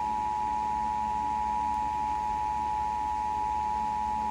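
Emergency Alert System attention signal: the two-tone 853 and 960 Hz alert held as one steady, unbroken tone. It announces that an emergency alert message, here a flash flood warning, is about to be read.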